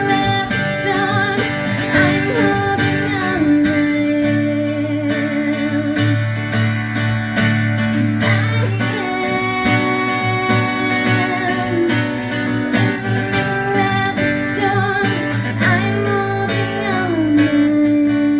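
Two acoustic guitars strummed along with singing, the voice holding long wavering notes over an even strum.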